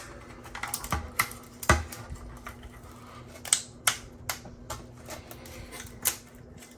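Support material being snapped and pried off a 3D-printed plastic helmet piece: irregular sharp plastic clicks and snaps, with a few louder cracks among them.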